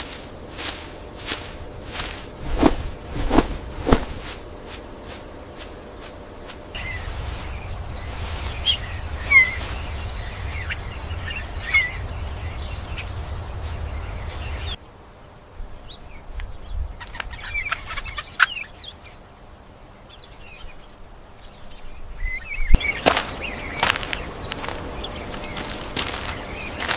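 Forest birds calling in short, pitch-bending chirps over a background hum of forest ambience. A run of sharp clicks sounds in the first few seconds. The background changes abruptly three times.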